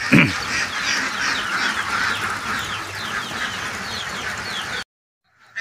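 A flock of laying ducks calling together, many quacks overlapping in a continuous chorus, cut off abruptly near the end.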